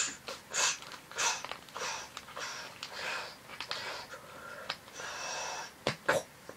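Root beer lid opened with a short sharp burst, then a run of noisy gulps and breaths, about one every half second, as the root beer is drunk; two sharp clicks near the end.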